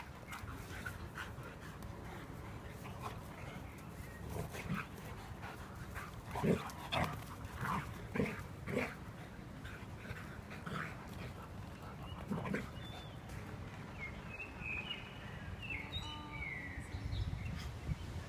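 Two dogs play-fighting, with a run of short dog vocalisations over a low outdoor rumble; they come thickest about six to nine seconds in.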